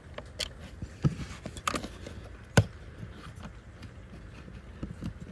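Scattered plastic clicks and knocks as a hand works the cabin air filter cover loose from its housing under a Ford Fiesta's dashboard; the loudest knock comes about two and a half seconds in.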